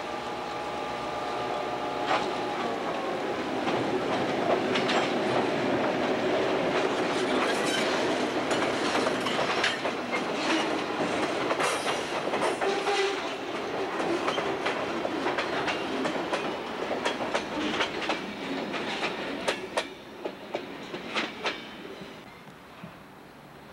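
A diesel freight train crossing a wooden trestle bridge. The locomotive's horn is sounding at first and cuts off about two seconds in. The train then rumbles across with its wheels clacking over the rail joints, and the clacks thin out and fade near the end.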